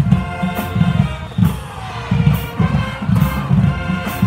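High school marching band playing: brass and sousaphones over a steady, driving drum beat, with a sharp crash about once a second.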